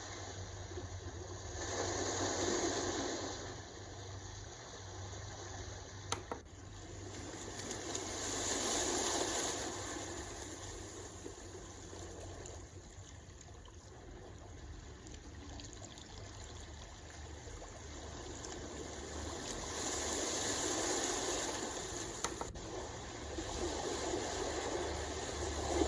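White noise machine playing a flowing-water sound: a steady rush that swells and fades every several seconds. A sharp click comes about six seconds in and another at about 22 seconds, where the sound changes, as the machine is switched to its next sound.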